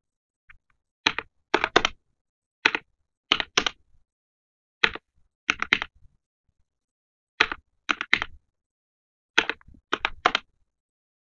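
Keys of a calculator with mechanical keyboard-style keycaps being pressed: sharp clacks in irregular clusters of one to five, with short pauses between, as a column of figures is added up.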